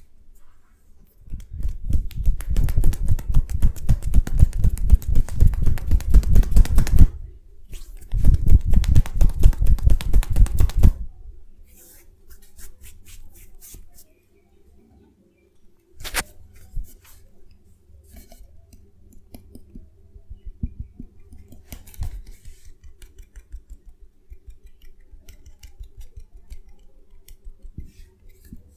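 Rapid percussive massage strokes, fast taps or chops landing on the body in two loud runs of several seconds each. These are followed by quieter scattered taps and rubbing clicks, with a couple of sharper single clicks.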